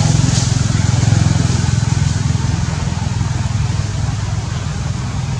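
A small engine running steadily: an even low hum with a light hiss above it, easing off slightly in the second half.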